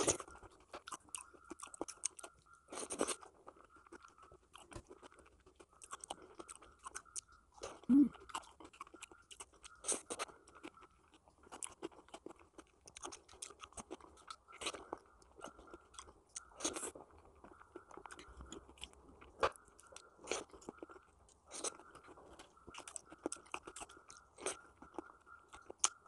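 Close-up mouth sounds of a person chewing soft ripe papaya: wet smacks and clicks in quick, irregular runs, with a brief low hum about eight seconds in.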